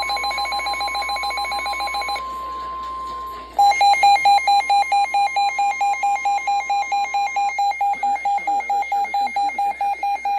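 NOAA Weather Radio's steady 1050 Hz warning alarm tone, marking a weather warning, overlaid with a receiver's rapid alert beeping at about four beeps a second. The beeping stops about two seconds in, leaving the steady tone alone for a moment. It then resumes louder and keeps going after the steady tone ends about seven and a half seconds in.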